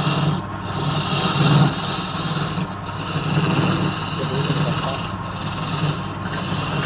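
Wood lathe running while the spinning workpiece is being worked, a steady rubbing and scraping over the motor's hum that swells and eases every second or so.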